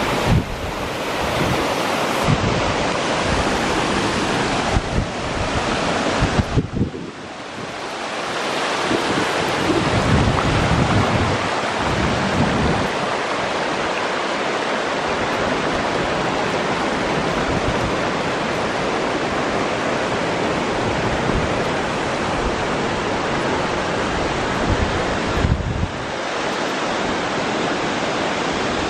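Rushing water of a waterfall and shallow river rapids, a steady noise, with wind buffeting the microphone in low gusts several times.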